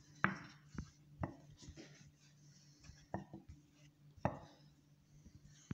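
Wooden rolling pin rolling dough out thin on a wooden chopping board, with several sharp knocks at uneven intervals where the pin strikes the board.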